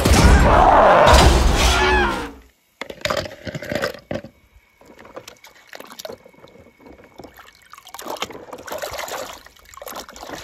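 Loud cartoon soundtrack with voices that cuts off about two seconds in, followed by water sloshing and splashing in uneven bursts as a toy vehicle is pushed by hand through shallow water.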